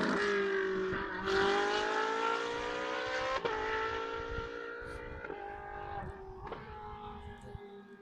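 Race car engine running at a near-steady pitch and fading as it moves away, with a few sharp cracks about three and a half, five and six and a half seconds in.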